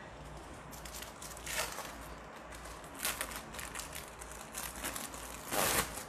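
Thin plastic film crinkling and tearing as a wrapped cheddar cheese slice is peeled open by hand. It comes in a few short bursts, the loudest near the end.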